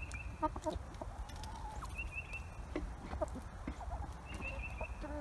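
A small flock of hens clucking softly as they feed, with light sharp taps of pecking and a short high chirping phrase that comes back about every two seconds. A low wind rumble sits on the microphone underneath.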